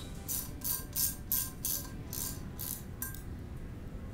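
Background music, with a ratcheting wrench clicking in short bursts about three times a second as it loosens the coolant drain union on an aluminium engine block. The clicking stops a little before three seconds in.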